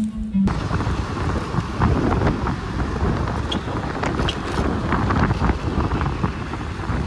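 Wind buffeting the microphone over the rumble of road and traffic noise from a moving vehicle on a city street, starting abruptly about half a second in.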